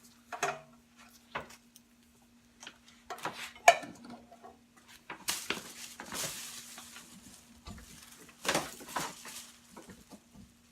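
Small metal hardware and packaging being handled: irregular clinks, knocks and rustles, with a couple of louder rustling bursts around the middle and near the end, over a faint steady hum.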